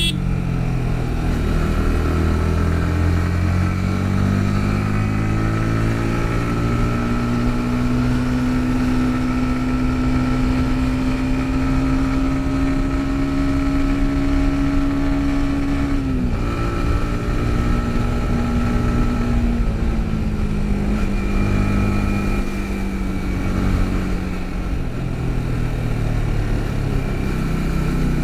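Yamaha MT-15's single-cylinder engine running under way. Its pitch rises and holds steady, drops sharply about halfway through, then eases down and climbs again near the end.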